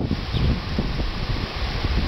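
Wind buffeting the microphone in uneven gusts, over the steady wash of ocean surf surging into a rock grotto below.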